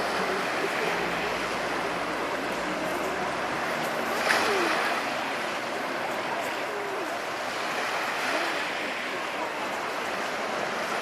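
Sea waves washing onto the shore in a steady rush, with one louder wave breaking about four seconds in.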